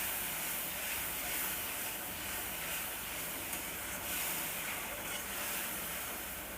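Tomato paste frying in hot mustard oil in a pan: a steady sizzle and hiss.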